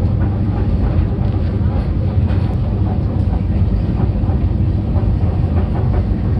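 Wheels of a moving train clattering over the rails, heard from inside the carriage, over a steady low rumble.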